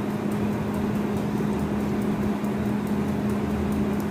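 Steady hum of a running motor: one constant low tone over an even rushing noise, unchanging throughout.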